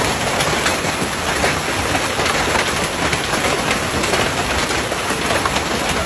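Hail pelting down hard: a dense, steady clatter of countless hailstones striking.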